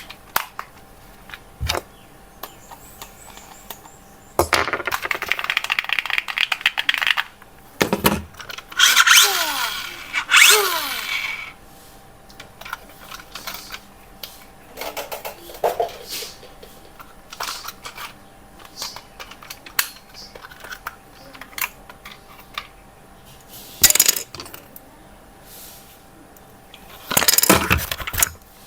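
Scattered clicks and rattles of small hard plastic or metal parts being handled, with a few louder stretches of buzzing and rustling, the longest about five seconds in and again about ten seconds in.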